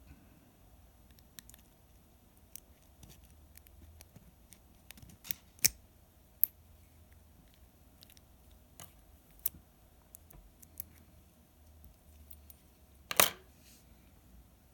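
Small, irregular metallic clicks and ticks of a lock pick and tension wrench working in a Master Lock commercial padlock's keyway, with the sharpest click near the end.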